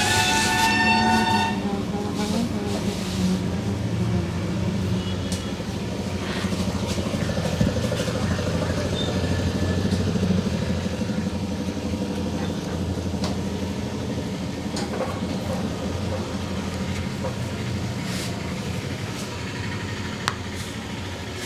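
Street traffic: a steady low engine rumble, with a vehicle horn honking for about the first second and a half and a few faint clicks later on.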